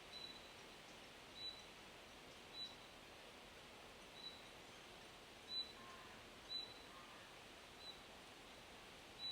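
A small bird repeating a short, high call note about once a second, some notes with a quick upward flick. It sounds over a faint, steady hiss of wind in forest leaves, with a couple of faint lower bird notes near the middle.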